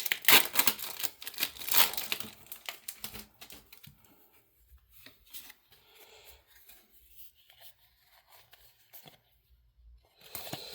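A foil trading-card booster pack being torn open and crinkled for the first three seconds or so, then only faint scattered ticks of handling.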